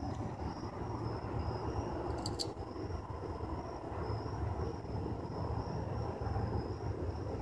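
Outdoor background: a steady low rumble with a steady high-pitched trill throughout, and a brief click about two seconds in.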